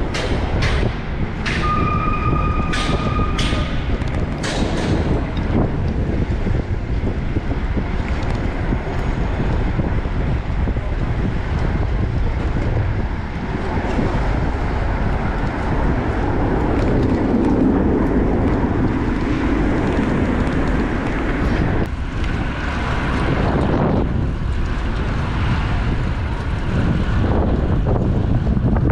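Steady rush of wind on the microphone and traffic noise while riding a bicycle through city streets, with a few clicks and a brief high tone about two seconds in.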